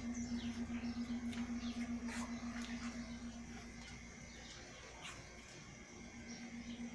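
Small birds chirping in many short, quick, falling notes, thinning out midway and picking up again near the end, over a steady low hum that pulses a few times a second.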